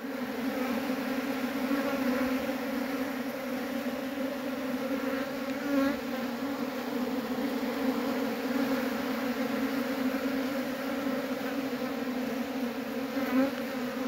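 A large cluster of bees buzzing at their nest: one steady, unbroken hum of many wings.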